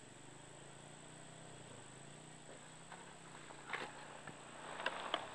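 Faint outdoor ambience: a steady high insect drone with a low hum in the first half, then a few clicks and rustles of the phone being handled near the end.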